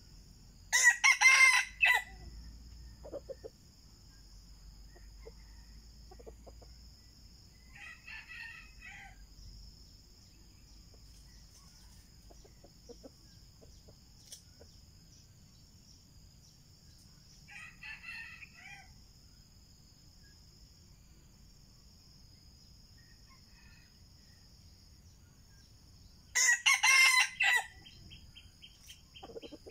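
Red junglefowl roosters crowing: two loud crows, one at the start and one near the end, with two fainter crows between them.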